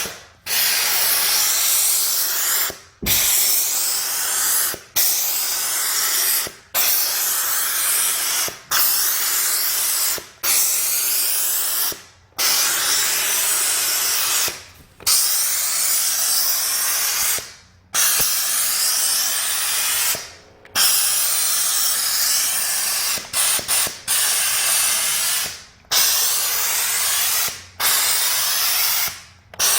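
Kärcher SC4 EasyFix steam cleaner hissing as it jets steam, in about a dozen bursts of one to three seconds, each breaking off briefly before the next starts.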